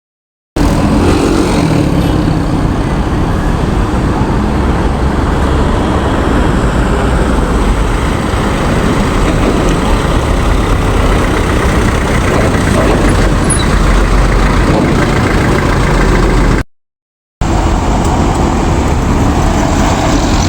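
Road traffic with vehicle engines running: a steady, loud rumble that cuts out for under a second near the end, then resumes.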